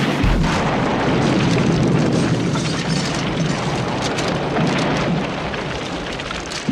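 Aftermath of a house explosion: a dense rumble and crackle of fire and falling debris that slowly fades.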